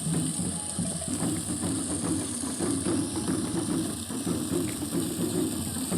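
Pond aeration system running: a steady pump hum under a dense, continuous crackle of small ticks from the moving water.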